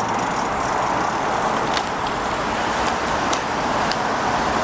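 Steady road traffic noise from cars passing on a multi-lane city road, with a few faint clicks.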